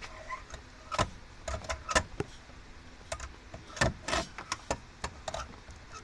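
Irregular clicks and knocks of objects being handled and shifted about by hand, with sharper knocks about one and two seconds in and again around four seconds in.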